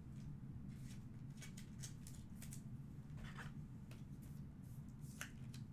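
Faint rustling and a few light clicks of trading cards and plastic card holders being handled, over a low steady hum.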